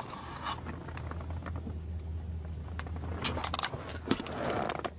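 Handling noise from a hand-held camera being turned around inside a car: rubbing, scraping and a few clicks, busiest near the end, over a low steady hum in the cabin.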